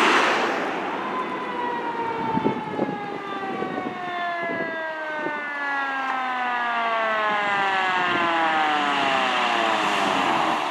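Fire engine's mechanical siren winding down in one long, slow fall in pitch.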